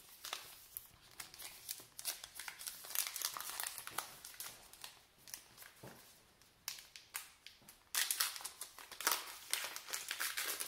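Wrapper of a baseball card pack crinkling and tearing as it is pulled open by hand, in irregular crackles. The crackles are louder around three seconds in and again from about eight seconds in.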